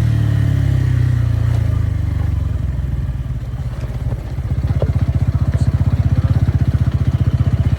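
Motorcycle engine running steadily, easing off about three seconds in, then settling into a low, evenly pulsing beat like an idle from about four seconds in.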